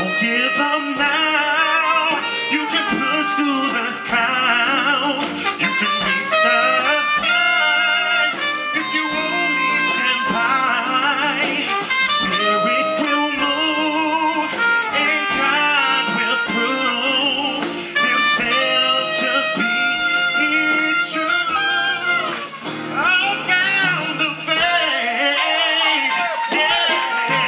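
Live band playing a soul-jazz number: trumpet over guitar, keyboard and drums, with singing.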